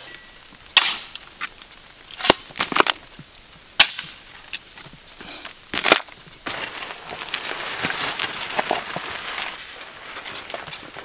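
Steel shovel scooping gravel and sand and tipping it into a plastic wheelbarrow tub, heard as several sharp scrapes and thuds. About six and a half seconds in, a steadier gritty rustle begins as the loaded wheelbarrow is pushed over gravel.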